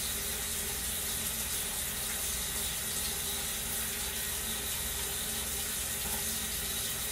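Water running steadily from a bathroom sink tap into the basin.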